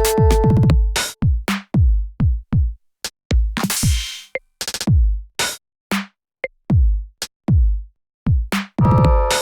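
Electronic music built on drum-machine kick drums, each dropping quickly in pitch. The hits come in an irregular, stuttering pattern with short gaps of silence, a hiss-like noise burst in the middle, and held synth chords at the start and again near the end.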